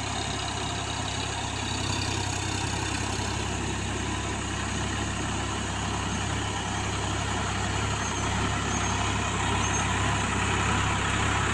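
Sonalika tractor's diesel engine running steadily as it drives through a flooded paddy field on iron cage wheels, getting a little louder near the end as the tractor comes closer.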